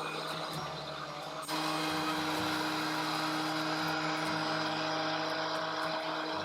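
DeWALT DW735 thickness planer fitted with a helical cutterhead, running steadily. About a second and a half in, the sound steps up and a steady hum joins it.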